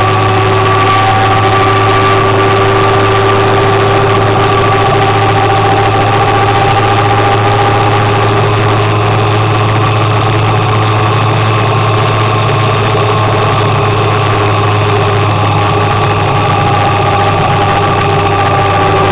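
Motor scooter engine running steadily while riding at cruising speed: a constant low drone with a steady whine above it, holding a nearly even pitch throughout.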